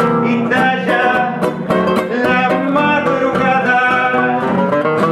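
Nylon-string classical guitars playing a tango accompaniment, plucked chords and runs in a busy rhythm, with a man singing over them.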